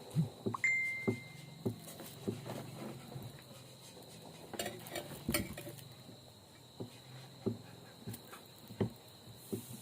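Spoon and fork clinking and scraping on a plate during a meal, in separate light clicks, one of which rings on briefly about half a second in.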